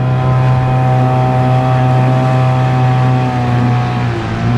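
Small Yamaha outboard motor running steadily at low revs, pushing an inflatable dinghy, with the wake churning behind; its pitch dips slightly near the end.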